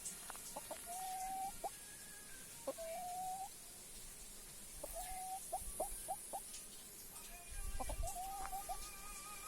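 Chickens clucking: a string of drawn-out, level calls about half a second long, mixed with quick short clucks, and faint higher calls near the end.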